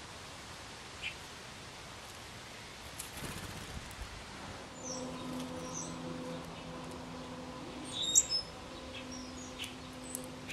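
Short, high bird chirps from about halfway through, the loudest a sharp pair a little after eight seconds, over a steady outdoor hiss. A low steady hum sets in about halfway through.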